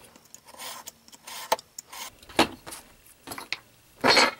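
Utility knife drawn along a steel ruler, cutting through chipboard in several short scraping strokes with a sharp click among them. A louder handling noise comes near the end.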